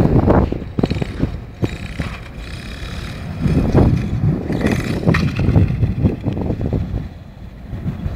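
Traxxas 1/16 E-Revo brushless RC truck driving: a faint, high motor whine comes and goes under irregular low rumbles and bumps.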